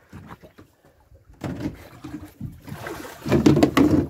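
A freshly speared mojarra being worked off a metal spear shaft against a boat's hull: scraping and knocking, sparse at first, then a dense clatter loudest near the end.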